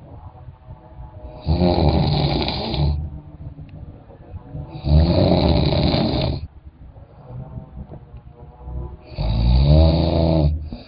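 Loud snoring: three long snores about three and a half seconds apart, each lasting about a second and a half, with quieter breathing between them.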